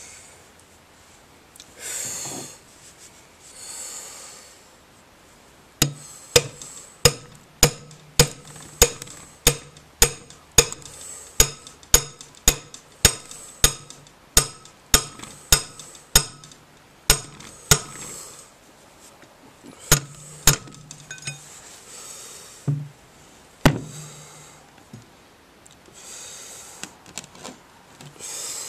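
Hammer blows on a steel socket extension driving a rust-seized piston down out of the cylinder of a Hercules ZXB engine. They come as a steady run of sharp metallic strikes with some ringing, about every half second for some fifteen seconds. Two more isolated strikes follow a couple of seconds later.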